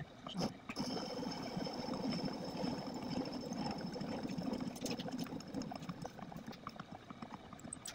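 Homemade metal lathe, driven by an electric lawnmower motor, running while cutting a test workpiece: a steady high whine over rough, crackling cutting noise with scattered small ticks.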